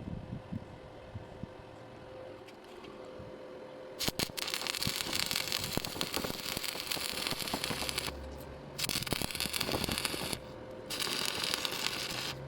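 Electric welding arc crackling and sizzling, starting about four seconds in and running in stretches of a few seconds with two short breaks, over a steady low hum.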